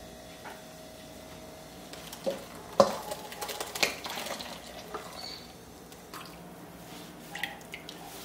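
Blended coconut and water poured and shaken out of a plastic blender jar into a dish towel over a bowl, wet splashing and dripping with a few sharp knocks of the jar a couple of seconds in.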